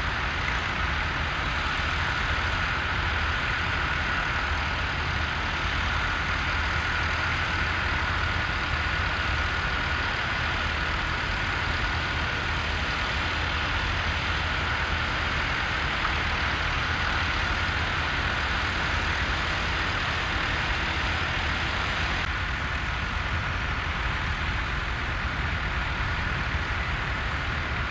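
Massey Ferguson tractor's diesel engine running steadily under load as it pulls a mounted plough through stubble, with a faint steady whine above the engine note.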